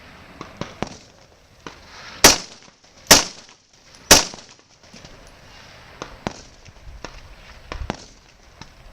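Three loud rifle shots about a second apart from an AR-15-style rifle, with fainter sharp pops before and after them.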